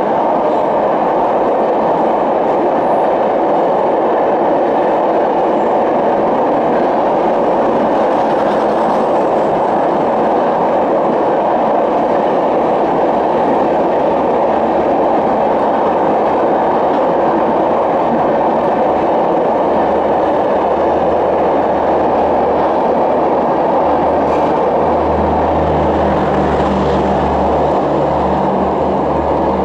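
Passenger coaches of an express train running through a station at speed without stopping: a steady, loud rush of wheels on rail. Near the end, as the last coach passes, a low hum joins in.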